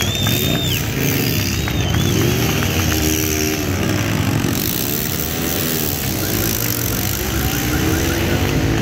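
Motorcycle engines revving up and down again and again, one rev after another.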